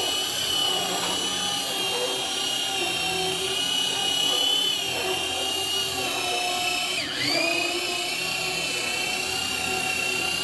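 Electric roof-seaming machine running along the joint between curved steel roof panels, its motor giving a steady high whine as it crimps the seam shut. About seven seconds in the pitch drops sharply for a moment and recovers.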